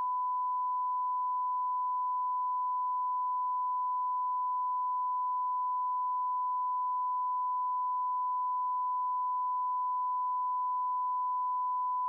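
NOAA Weather Radio warning alarm tone: a single steady high-pitched beep near 1,050 Hz, held without a break. It is the attention signal that comes before a broadcast weather warning.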